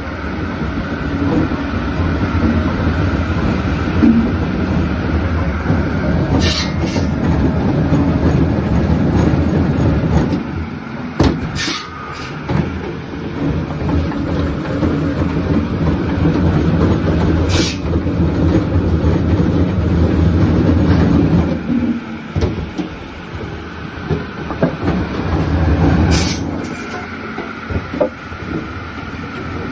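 Belt-driven circular log saw and its electric motor running with a steady low hum while short lengths of log are cut, with a few sharp cracks spread through.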